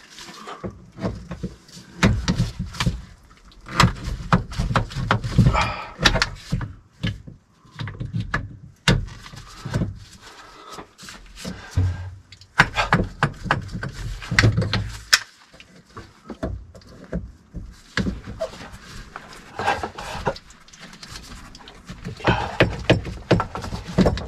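Irregular clicks, knocks and clanks of hand tools working on a copper water pipe and its fittings, with handling noise in between.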